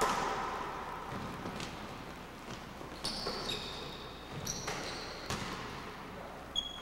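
Basketball bouncing and being caught on a hardwood gym floor, a few scattered knocks, with short high sneaker squeaks in the middle, echoing in the large gym.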